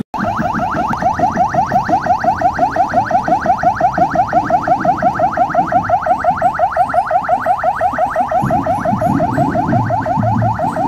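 Police vehicle's electronic siren sounding a rapid yelp: fast rising sweeps, several a second, repeated steadily, with a low rumble underneath.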